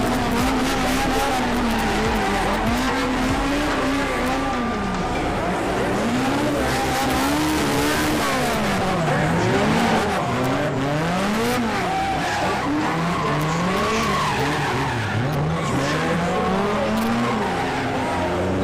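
A car engine revving up and falling back again and again, with tyres squealing and skidding as the car is spun in circles and slid sideways.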